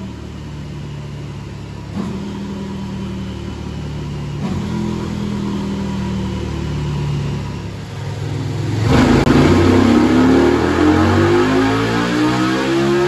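KTM 1290 Super Duke GT's V-twin, fitted with a stage 3 intake kit and a de-cat pipe, running steadily at low revs on a chassis dyno. About nine seconds in it opens up sharply into a full-throttle pull, the engine note climbing steadily as the revs rise.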